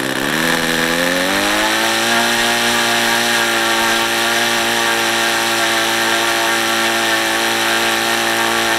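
Saito FA-90TS twin-cylinder four-stroke glow engine running with its propeller on a test stand. It revs up over the first two seconds to about 7,000 RPM, then holds a steady high note. The owner suspects it is not reaching full RPM on this prop, perhaps because the timing is off.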